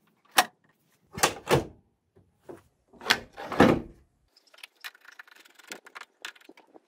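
A plastic front panel is knocked and pushed into place on a van's front end: about five sharp knocks and clunks in the first four seconds. Light clicking and rattling follow as a screwdriver works near the headlight.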